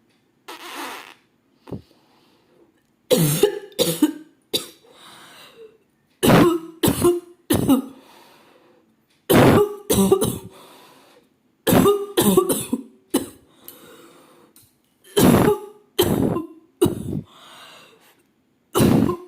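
A woman coughing on purpose in repeated fits of two or three sharp coughs, a new fit every couple of seconds. Just before the coughing starts there is a short breathy noise.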